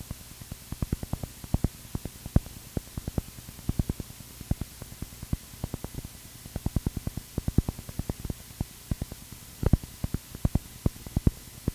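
Aircraft intercom audio with a steady hiss and low hum, broken by irregular crackling clicks of static several times a second.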